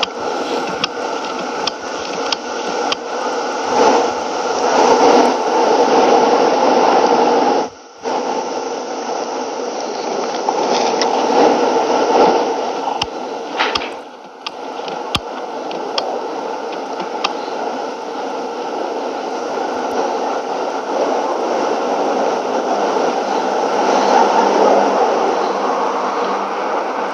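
Airbus A400M's four TP400 turboprop engines heard as a steady rushing noise, dropping out briefly about eight seconds in and again around fourteen seconds.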